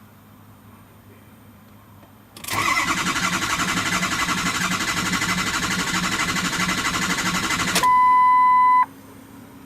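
Starter cranking a 6.0L Powerstroke V8 diesel for about five seconds, the engine turning over in an even rhythm without firing: a crank-no-start. The cranking stops abruptly and a loud steady beep follows for about a second.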